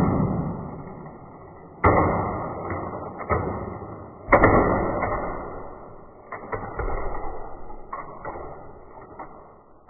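Two sharp clacks about two and a half seconds apart, each trailing off in a rattling rush, then a string of lighter clicks: a die-cast toy monster truck and plastic magnetic building tiles knocking together.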